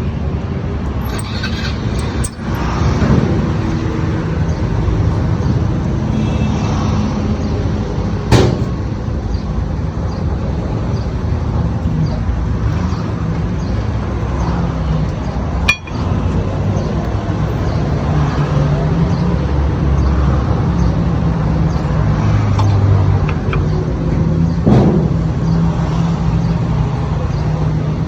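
Motor vehicle engine running steadily, with a few sharp clicks over it.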